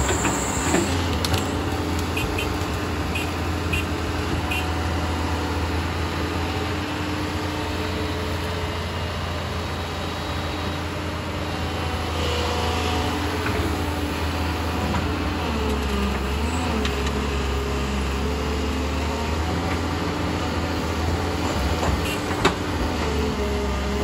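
Doosan excavator's diesel engine running steadily under load, with a run of light ticks a few seconds in and a sharp knock near the end.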